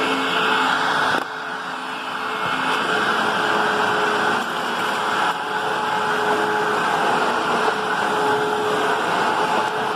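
Upright vacuum cleaner running steadily with a constant motor whine, just after spinning up to speed. The sound drops a little in level about a second in and then holds.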